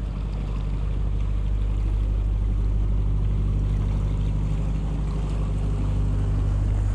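Narrowboat engine chugging steadily as the boat passes close by on the canal.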